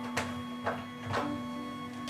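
Background music: a held low drone with sharp ticks about twice a second.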